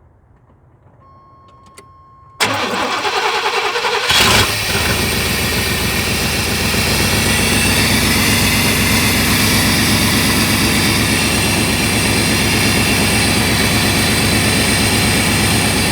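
A 1990 Chevy Silverado C1500's engine cold-started: the starter cranks for under two seconds, the engine catches with a brief rev and settles straight into a steady idle with no throttle held. It starts right up and keeps running now that the faulty coolant temperature sensor has been replaced, where it would not stay running before.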